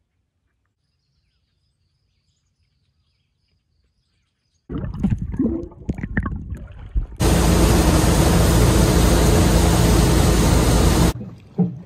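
Near silence for the first four and a half seconds, then water splashing and bubbling around a camera held underwater. About seven seconds in, a Suzuki outboard motor runs at speed, loud and steady, with wind and the rush of the boat's wake, and it stops abruptly about four seconds later.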